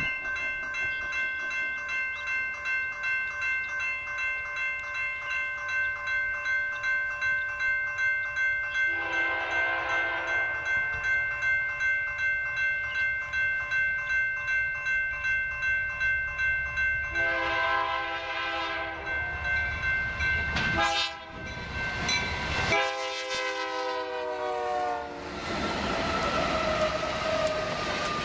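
Grade-crossing bell ringing about twice a second while an approaching BNSF freight train led by a GE C44-9W sounds its horn for the crossing: two long blasts, a short one and a final long one, the standard grade-crossing signal. The last blast drops in pitch as the locomotives pass, and the loud rumble of the passing locomotives and cars follows.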